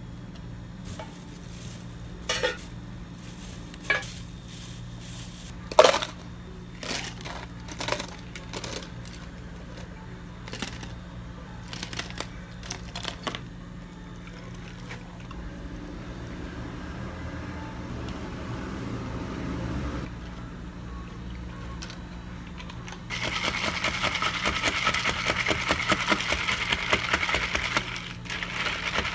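Ice cubes clattering into plastic cups in a string of sharp knocks, then milk pouring over ice with a rising rush, then a dense rapid rattle of ice as an iced drink is stirred with a straw. A steady low hum runs underneath.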